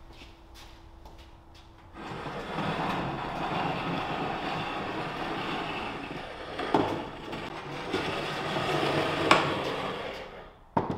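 Wooden legs of a small half-round table dragged across a concrete floor: a sustained scraping from about two seconds in, with a few knocks along the way and a sharp thump just before the end as the table is set down.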